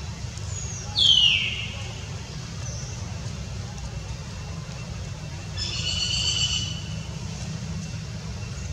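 A macaque gives a loud, high squeal that falls in pitch about a second in, then a steadier high-pitched call lasting about a second near the six-second mark, over a steady low rumble.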